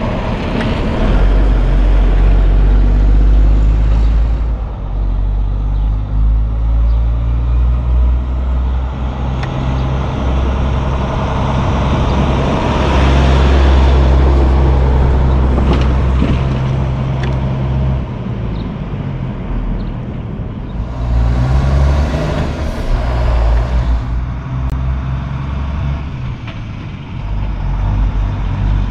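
Kenworth T800 semi tractor's diesel engine running at low speed as the rig pulls a 53-foot trailer past, with a steady deep drone. About three quarters of the way through comes a few seconds of hissing, typical of truck air brakes.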